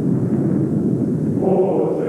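A loud, deep, steady rumble. About one and a half seconds in, a choir starts singing over it.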